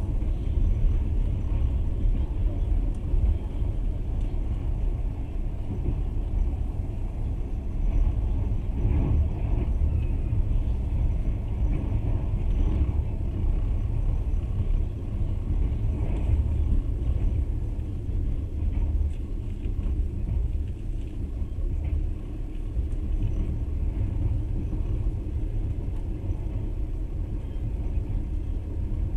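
Passenger train running at speed, heard from on board: a steady low rumble of wheels on rails and the moving carriage.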